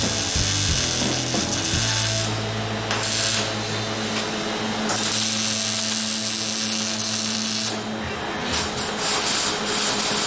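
MIG welder arc crackling steadily as it welds sheet steel onto a rusty car body. The arc stops about eight seconds in, followed by a few short crackles.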